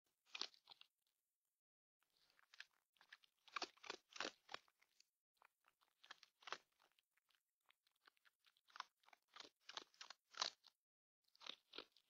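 Red fox chewing and crunching dry food pellets: a quick, irregular run of crisp crunches broken by short pauses.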